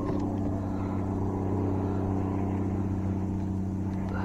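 A steady, low engine hum with an unchanging pitch, plus a few faint light clicks near the start and near the end.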